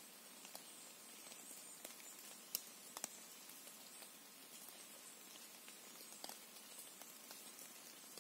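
Quiet forest ambience near silence: a faint even hiss with scattered soft ticks and taps, two sharper taps about half a second apart around two and a half seconds in.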